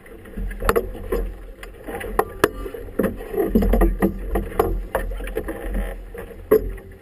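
Choppy harbour water slapping and splashing against a small boat's hull in irregular knocks, over a steady low rumble of wind on the microphone.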